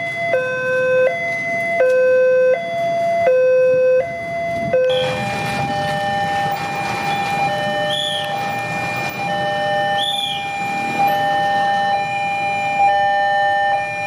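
Electronic warning signals of Indonesian railway level crossings, sounding while the barriers are down for an approaching train. First comes an alternating high-low two-tone alarm. About five seconds in it gives way to a different crossing's signal, steadier tones with a shorter repeating tone over road traffic noise.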